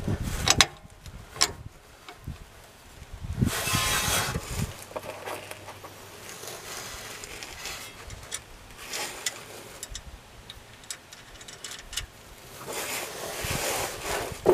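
Hand work on a sway bar bushing bracket: scattered light clicks and clinks of bolts, nuts and washers against the steel bracket, with bursts of rustling from handling and clothing.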